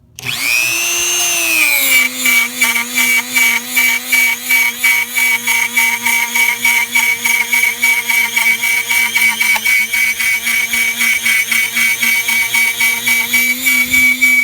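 Dremel rotary tool cutting Coroplast corrugated plastic sheet: the motor starts with a rising whine, then settles into a loud, steady high whine that pulses about four times a second.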